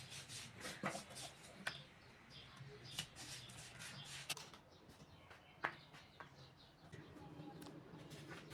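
Paper being handled for folding: faint, scattered rustles and small clicks, one sharper click about halfway through, over a low steady hum.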